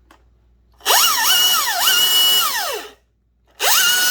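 Husqvarna 540i battery chainsaw's electric motor spun up on the trigger. It makes a rising whine that holds steady, dips and climbs back twice as the trigger is eased, then winds down. A second spin-up comes near the end.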